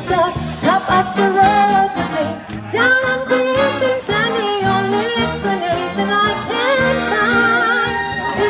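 A woman sings a melody with vibrato through a PA speaker, accompanied by a live wind band with saxophones.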